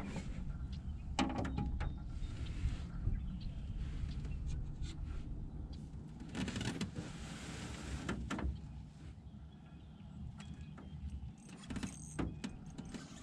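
A low, steady motor hum with scattered knocks and clicks, and two short hissy rushes in the first half.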